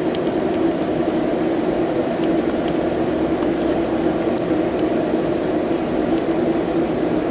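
Steady mechanical hum with a constant tone, unchanging in level, with a few faint light ticks over it.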